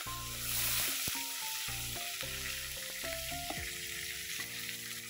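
Cumin seeds and curry leaves sizzling in hot oil for a tempering, a steady frying hiss that is loudest in the first second. Soft background music plays underneath.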